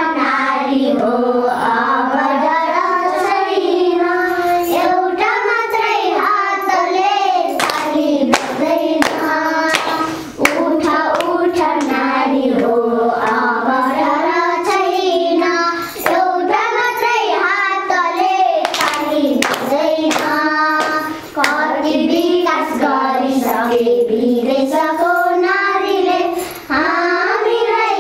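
A group of young girls singing a song together in unison, with scattered hand claps keeping time. The singing breaks briefly between lines, about every five or six seconds.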